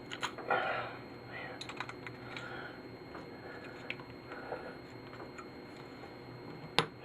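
Scattered light clicks, taps and small scrapes of metal and plastic parts being worked loose from a small TV's chassis, with one sharp click near the end.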